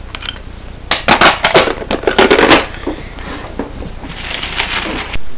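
Handling noise from a handheld camera: a run of loud rustles and knocks about a second in, lasting about a second and a half, with a softer rustle near the end.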